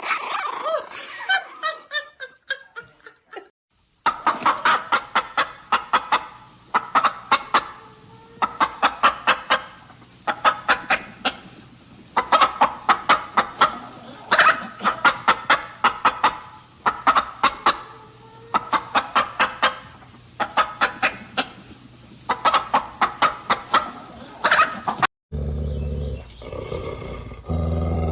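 Chickens clucking in quick runs of short clucks, one run after another, after a falling call at the start. Near the end a different, deeper sound suddenly takes over.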